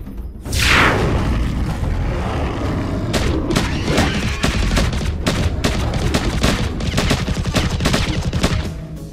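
Cartoon weapon sound effects from bazooka-style launchers: a falling whoosh about half a second in, then a long run of rapid shots and booms over a low rumble, which stops shortly before the end.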